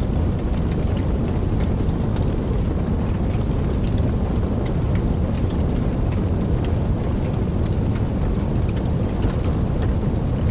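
Campfire burning: a steady low rush of flames with frequent small crackles and pops scattered throughout.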